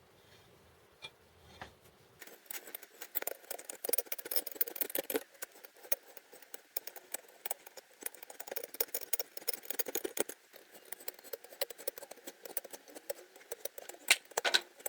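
A two-flute 8.02 mm hand reamer is being turned through an exhaust valve guide in a MeMZ-2471 cylinder head. It makes a dense, irregular run of small metallic scrapes and clicks that starts about two seconds in.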